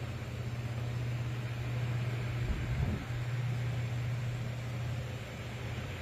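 Old electric ceiling fan running: a steady motor hum with the rush of air from its spinning blades. The hum breaks briefly a little under halfway through, under a short low bump.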